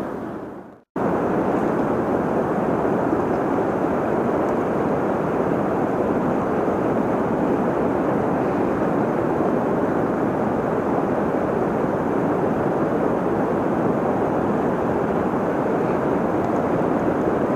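Steady, even rushing of flowing river water, starting abruptly about a second in and holding at a constant level without gusts.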